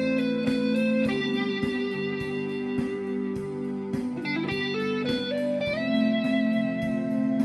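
Electric guitar playing a slow lead melody of long held notes, the line dipping and climbing in pitch about halfway through, over a steady low sustained chord and a regular beat.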